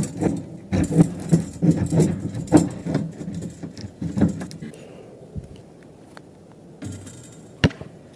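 Irregular rattling and rustling from handling a basketball net as it is hooked onto the hoop's rim. It dies down about halfway through, and one sharp click comes near the end.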